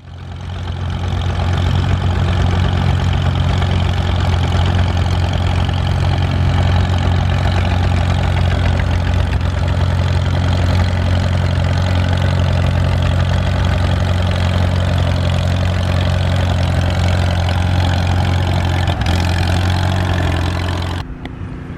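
Vintage tractor engine running steadily at a low, even speed. It fades in over the first couple of seconds and cuts off suddenly near the end.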